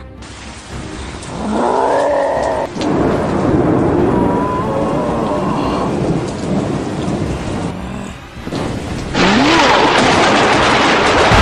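Added sound effects: thunder rumbling and crashing as Thor raises his hammer, with roaring from the Hulk, one roar about two seconds in and another near the end.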